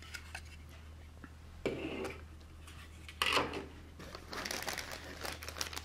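A plastic bag of model kit parts being handled: a few soft knocks and rustles, then crinkling from about the middle on. A low steady hum sits underneath.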